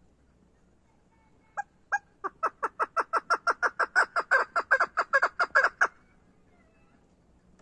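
Caged female chukar partridge calling. Two single clucks come first, then a fast even run of about eighteen 'chuck' notes, roughly five a second, that grows slightly louder and stops abruptly.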